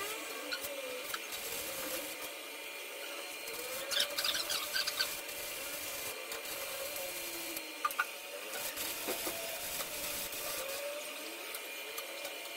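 Electric arc welding on steel beams: a steady crackle and hiss from the arc, with a few sharp clicks around four and eight seconds in.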